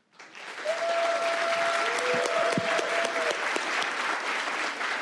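Audience applauding, swelling up quickly and then holding steady, with a steady held tone over the clapping from about one to three seconds in.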